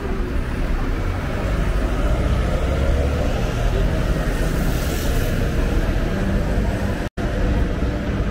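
City street traffic: a low engine rumble from passing vehicles, swelling a couple of seconds in. The sound drops out for an instant about seven seconds in.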